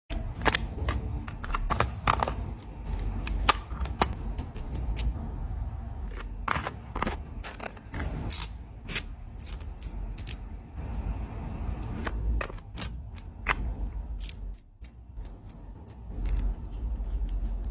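Small thin-metal puzzle-kit parts being handled and fitted together: frequent irregular sharp clicks and snaps over a low rumble of handling.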